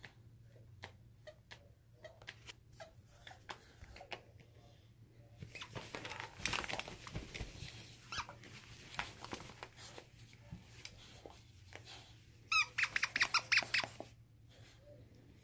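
A dog chews a squeaky dog toy, making scattered short squeaks and a stretch of rustling noise in the middle. Near the end comes a quick loud run of about ten squeaks.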